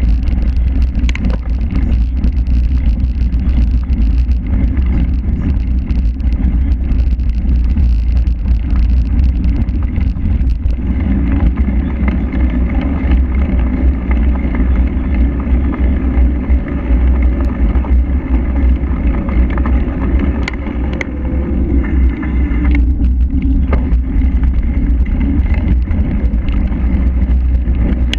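Heavy, steady wind rumble on the microphone of an action camera riding on a cyclocross bike at race speed, mixed with tyre noise and frequent clicks and rattles from the bike over the course.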